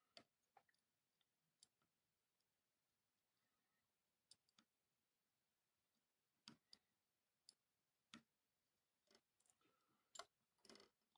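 Faint, irregular clicks and taps of small tools and electronic parts being handled on a workbench, about a dozen in all, bunching together near the end.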